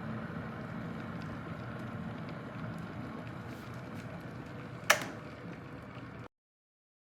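Mueller 1500W glass electric kettle heating water with a steady rumbling hiss, with a single sharp click about five seconds in.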